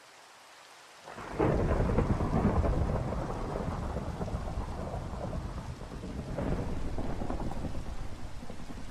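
Faint steady rain, then about a second in a thunderclap breaks into a long rolling rumble over the rain, swelling again about six seconds in.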